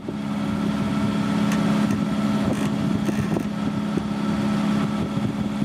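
A boat's engine running steadily at constant speed, a low, even hum.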